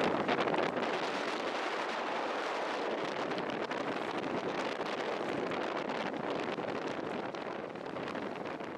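Strong gusty wind blowing hard across the microphone: a dense, steady rushing that eases slightly towards the end.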